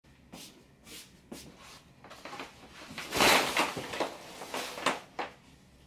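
Bedroom curtains being pulled open by hand: a few soft fabric swishes, then a louder sweep of the curtains sliding apart about three seconds in, more swishing after it, and a short click near the end.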